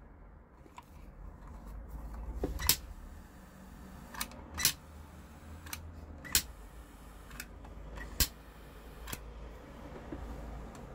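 Glock 18-style pistol lighter being handled: about eight sharp, irregular clicks and knocks of its parts and of it against the display stand.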